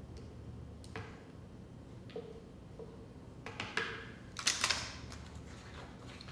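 Light, scattered clicks and taps of measuring spoons and containers being handled at a blender jar while ingredients go in, with a quick cluster of sharper clicks about four and a half seconds in. The blender motor is not running.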